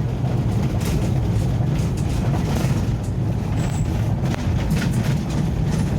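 Ambulance driving on a forest road: a steady low engine and road rumble heard from inside the cabin.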